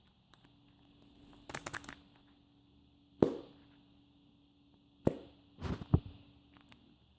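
A series of short knocks and clattering taps: a quick rattle, then single sharp knocks and another quick cluster, over a faint steady hum.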